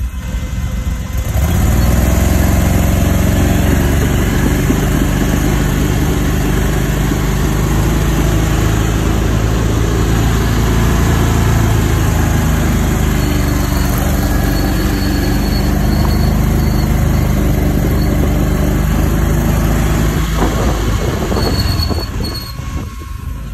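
Engine of an Argo XTV amphibious ATV on tracks, running hard as it crawls through deep swamp mud, heard from the driver's seat. The revs climb about a second in, hold steady, then ease off near the end.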